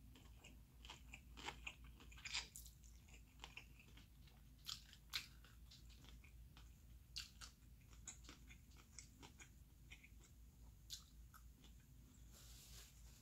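Close-miked eating sounds: wet chewing and mouth smacks of someone eating noodles, irregular, with a few louder smacks scattered through.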